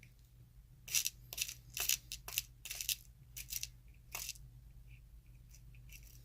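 Hands rummaging through small lock parts: a run of irregular clicks, taps and rustles, busiest in the first four seconds, then a few faint ticks.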